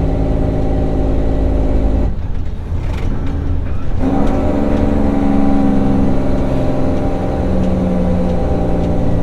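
Diesel engine of a 2005 Mack CH600 truck running under the cab during a manual downshift. The engine note drops away about two seconds in as the clutch goes in, then comes back loud at a new pitch about four seconds in and steps lower near the end.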